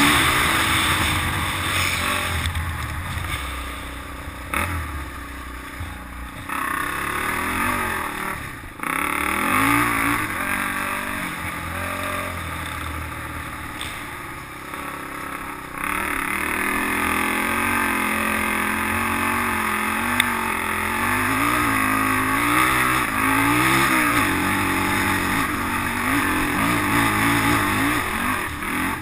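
Polaris Outlaw 500 quad's single-cylinder four-stroke engine running under way on a dirt trail, its pitch rising and falling again and again as the throttle is worked, over a steady rushing noise. A single sharp tap about twenty seconds in.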